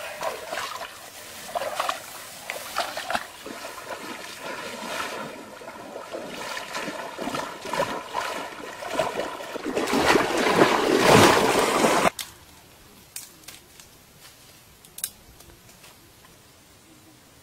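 Water splashing and sloshing as a person wades knee-deep through a flooded, muddy rice paddy. It builds to its loudest near the end of the wading and cuts off suddenly, leaving a quieter stretch with a few light clicks.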